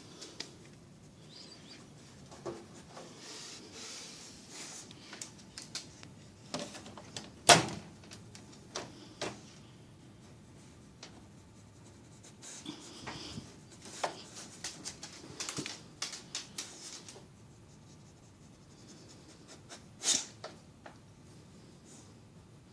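A beagle nosing and licking about a microwave: scattered clicks, knocks and scrapes, with a sharp knock about a third of the way through and another near the end.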